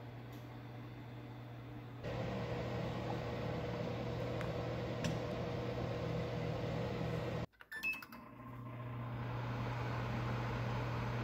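Combination microwave-convection oven running with a steady fan hum. About two-thirds of the way through the hum cuts out, a few control-panel button clicks and a short beep follow, and the hum builds back up as the oven starts.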